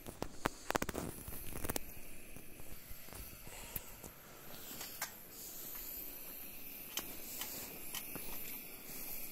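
Footsteps scuffing on a gritty cave floor with camera handling noise: a quick run of clicks and scuffs in the first two seconds, then scattered single clicks, over a steady hiss.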